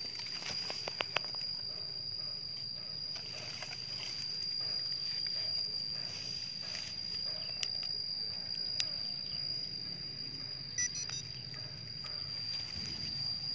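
An insect trilling outdoors, a single steady high-pitched tone that never breaks, with a few light clicks about a second in.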